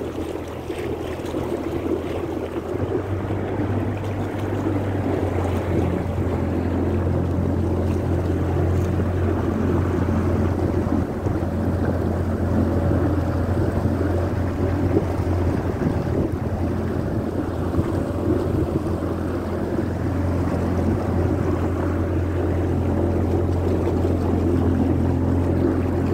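A boat's motor running steadily as a low, even hum while the boat moves across calm water, with wind buffeting the microphone and water rushing along the hull.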